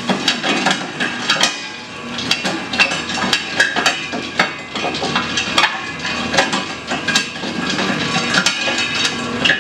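Locomotive 1000 nut-cracking machine running with a steady hum while the last tropical almonds (Terminalia catappa) clatter and knock irregularly in its cracking chamber as their fibrous husks are stripped off.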